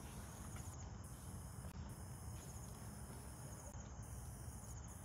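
Faint chirping of night crickets over a low background hiss.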